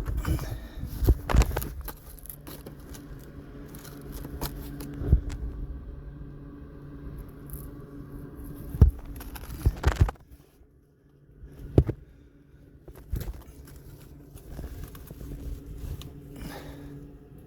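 Irregular knocks and scrapes of people moving over loose rock in a small tunnel, over a steady low hum; the sounds stop briefly about ten seconds in.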